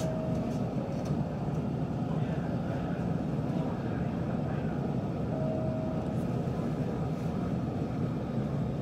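Steady low hum inside the driver's cab of a Hanshin 5500-series electric train standing at the platform, with a short faint tone sounding twice.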